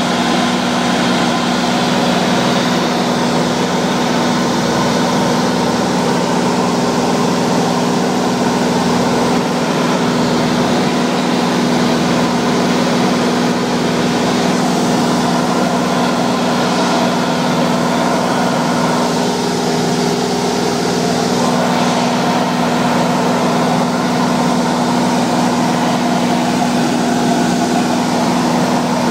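Light aircraft's engine and propeller running at steady cruise in flight, heard from inside the cabin: an even drone with a steady low hum and no change in pitch.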